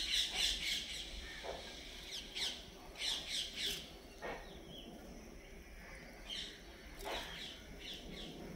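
Small birds chirping in short runs, with a few scrapes of a steel spoon against an iron kadhai as rice is lifted out.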